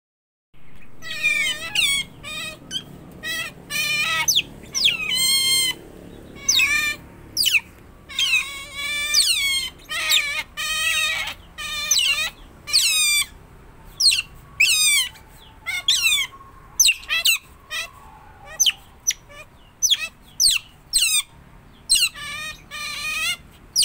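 Otters calling in shrill, high-pitched squeaks and chirps, short calls repeated over and over, about once or twice a second, many sliding downward in pitch.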